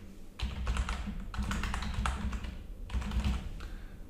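Typing on a computer keyboard: a run of keystrokes starting about half a second in and stopping shortly before the end.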